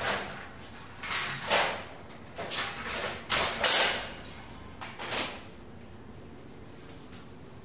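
Metal-framed sliding-door panel being lifted and worked into its track, scraping and rattling against the rail in a handful of short bursts over the first five seconds, then going still.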